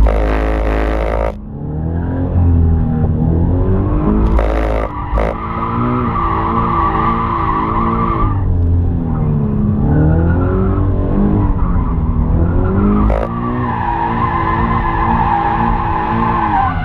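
A rear-drive sports coupe circling under power on Goodyear RS Sport tyres. The tyres squeal and judder while the engine note rises and falls with the throttle. The squeal swells twice, most strongly near the end. The shuddering squeal is the tyres protesting: the front tyres are being scrubbed wide with too much steering lock, so the front washes out.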